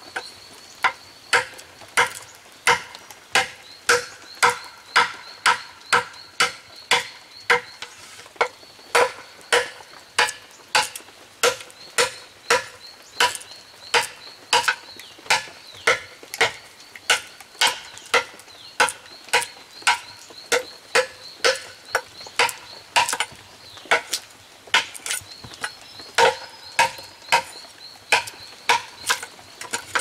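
Knife chopping steadily, about two strokes a second, with a faint high steady whine in the background at times.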